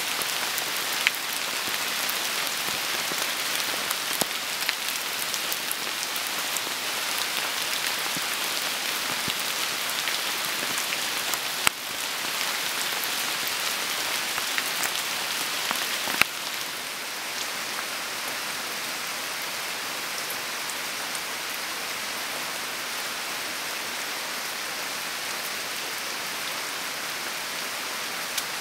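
Steady rain falling, an even patter with scattered sharper drop hits. About sixteen seconds in, the rain sound drops a little in level and stays even, with water dripping from a shed's roof edge.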